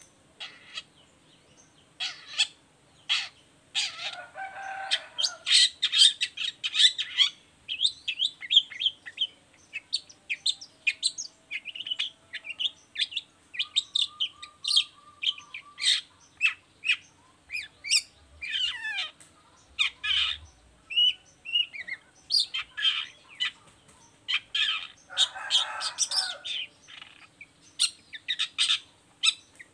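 Long-tailed shrike singing vigorously: a fast, varied run of sharp chips, short whistled notes and trills. Harsh rasping calls break in about four seconds in and again near the end.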